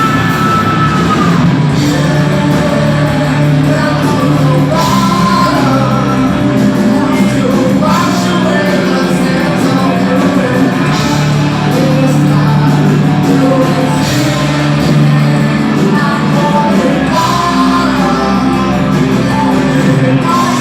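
A rock band playing live at full volume, with a singer belting and shouting the vocals over the band, the sound filling a large room.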